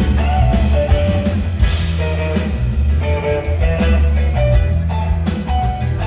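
Live rock band playing: guitars and electric bass over a drum kit with a steady run of cymbal hits, the bass heavy underneath.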